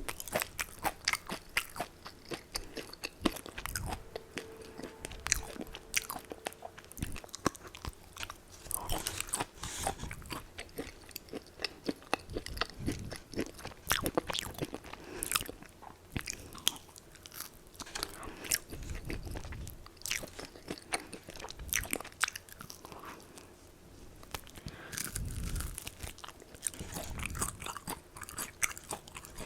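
Close-miked biting and chewing of crispy fried chicken: rapid, irregular crunching crackles with softer chewing between bites.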